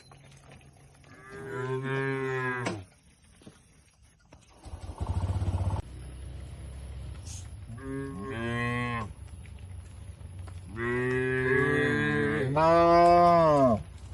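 Cattle mooing: four long calls, one about a second in, one around eight seconds, and two back to back near the end, which are the loudest. A short low rumbling noise comes about five seconds in.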